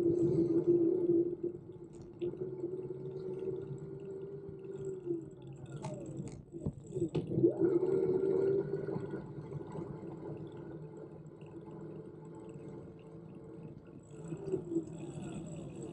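Electric bike's front hub motor whining steadily under assist, with road and wind noise underneath. The whine drops away about five seconds in and returns near eight seconds, with a few clicks and sliding pitch in between.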